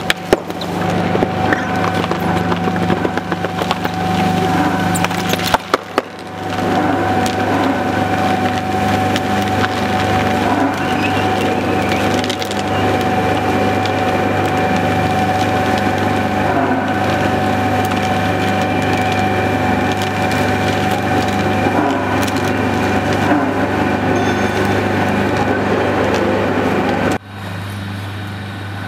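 Two-shaft plastic shredder running under load, its counter-rotating cutters tearing and crushing plastic bags and film with a dense crackle over the steady hum of the drive. The sound dips briefly about six seconds in, and near the end drops suddenly to a quieter steady drone.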